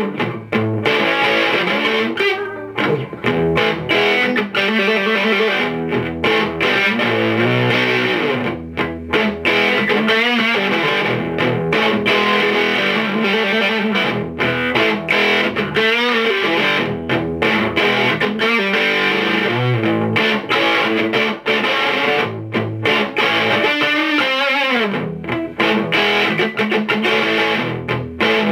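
Electric guitar played through a homemade distortion pedal into an amp: distorted riffs and chords, almost without a break.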